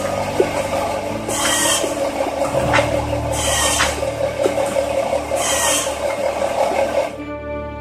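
Woodworking at a workshop bench: a rasping stroke about every two seconds over a steady machine hum. The workshop sound cuts off about seven seconds in, leaving a sustained musical chord fading out.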